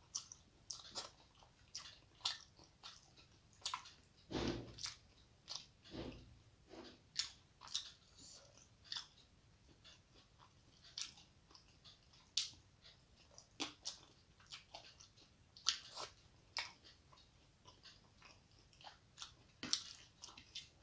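Close-up eating sounds of a person eating rice and fish curry by hand: irregular wet chewing and lip-smacking clicks, with a couple of dull thumps about four and six seconds in.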